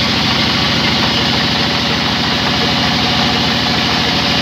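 Sawmill engine running steadily with a fast, even low chugging and a steady hiss above it, the band saw not yet cutting.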